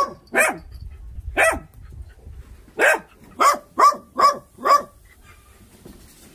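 A dog barking: two single barks about a second apart, then a quicker run of five, about two or three a second, stopping about two-thirds of the way through.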